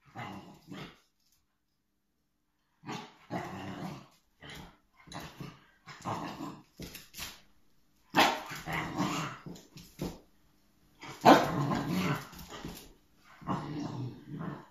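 Puppy growling and barking in short, irregular bursts at a beef bone it cannot get hold of, a sign of its frustration. The loudest outburst comes about eleven seconds in, after a pause of nearly two seconds near the start.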